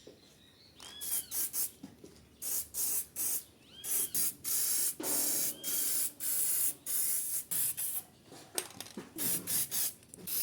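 Paint being sprayed in many short bursts, about twenty hisses of a fraction of a second to a second each, with faint brief whistles among them.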